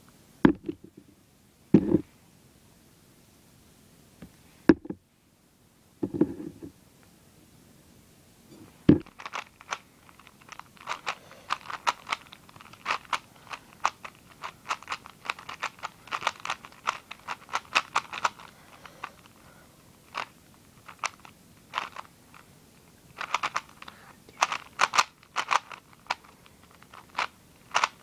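Plastic 3x3 speed cube being turned fast by hand: rapid, irregular clicking and clacking of the layers, in quick runs with short pauses. A few dull knocks come in the first several seconds before the steady turning sets in.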